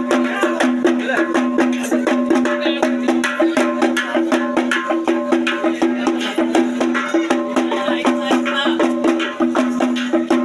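Procession music: fast, dense drumming with sharp strokes over a steady, unbroken two-note drone.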